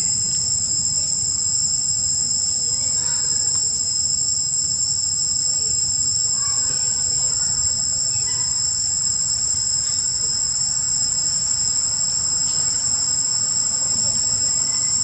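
Steady, shrill insect chorus of crickets or cicadas, holding two high continuous tones without a break, over a low rumble.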